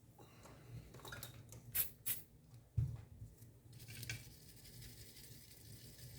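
A few light clicks and taps of small hand tools and parts being handled on a workbench, with faint handling noise in between.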